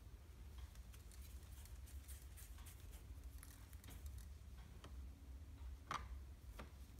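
Faint rustling and light ticking of sesame seeds as a dough ball is rolled in them in a metal mesh strainer, with a sharper tap about six seconds in as the coated ball is set down on the cutting board. A low steady hum runs underneath.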